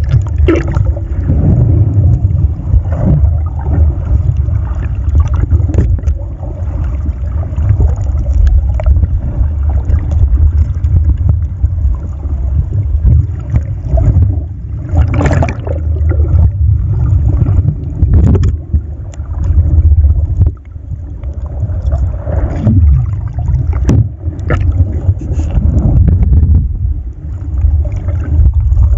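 Muffled underwater water noise from a submerged camera: a heavy, uneven low rumble with a few sharp knocks now and then.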